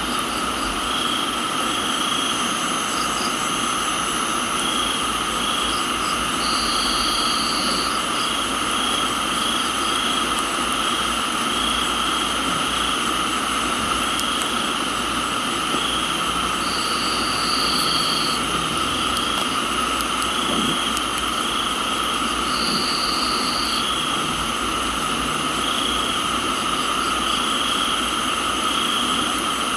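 Crickets and other insects chirping and trilling in a steady chorus over an even hiss of rain. A higher trill cuts in three times, each lasting a second or two.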